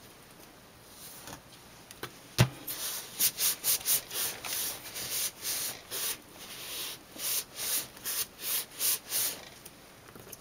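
A hand rubbing back and forth over kraft card stock in quick strokes, about two or three a second, after a single sharp knock about two seconds in.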